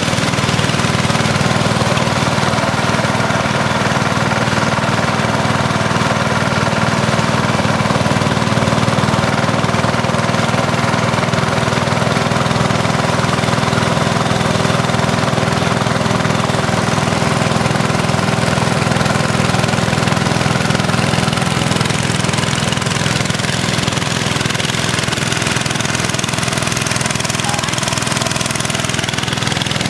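Small outboard engine of a motorized bamboo raft running steadily at cruising speed, a loud even buzz with a knocking edge.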